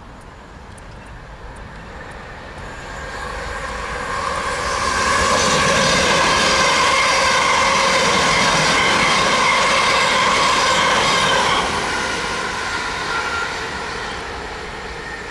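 A South West Trains Siemens Desiro electric multiple unit passing through the station. Its rumble and steady whine build over a few seconds, stay loud for about six seconds as the carriages go by, then fade as it moves away.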